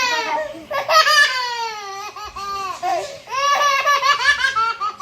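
Baby laughing in several high-pitched bouts, the longest sliding down in pitch about a second in.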